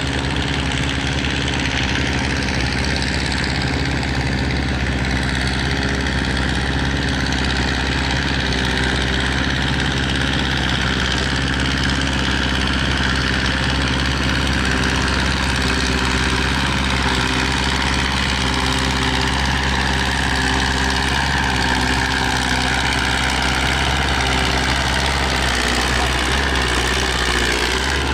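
Vintage Ford farm tractor's engine running steadily under load as it pulls a weight-transfer sled at a tractor pull. Its note wavers and falls away near the end as the pull comes to a stop.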